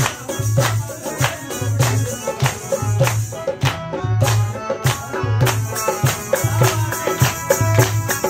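Live Balti folk music: a dholak barrel drum keeps a steady beat of deep strokes about twice a second, with hand-clapping from the listeners and the held chords of a harmonium.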